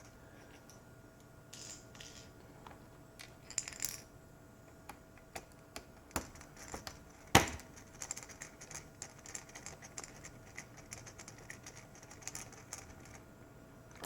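Small metallic clicks and ticks of screws and a screwdriver being handled and driven into a laptop's plastic case, with one sharp, louder knock about seven seconds in.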